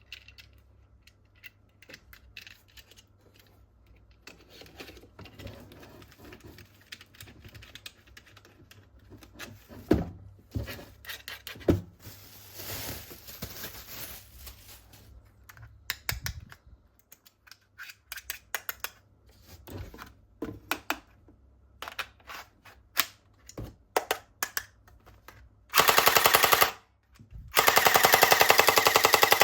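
Plastic toy parts handled with scattered light clicks and knocks, then near the end a toy gun's electronic rapid-fire sound effect plays loudly in two bursts, the second running on.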